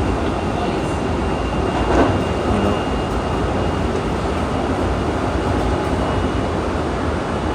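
Passenger train running at speed, heard from inside the car: a steady rumble and rushing noise with a faint steady high whine. There is a brief louder swell about two seconds in.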